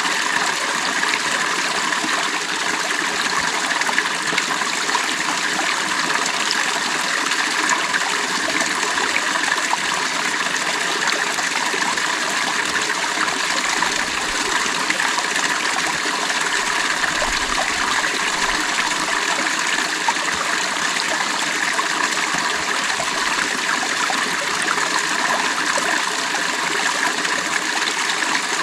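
Creek water running steadily over rocks, an even rushing and trickling without pause.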